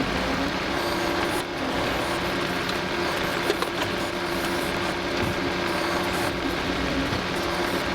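Diesel engine of compact earthmoving equipment running steadily at work, with a brief knock about three and a half seconds in.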